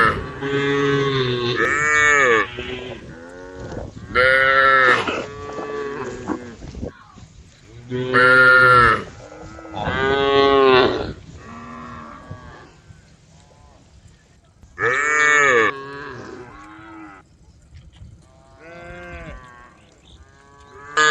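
Several cows mooing over and over, calling to the herd. Loud, long, drawn-out moos from nearby cows alternate with fainter answering moos from others further off.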